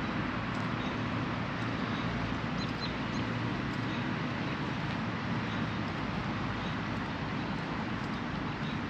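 Steady outdoor background noise of a city park, with faint short high chirps, typical of small birds, scattered throughout.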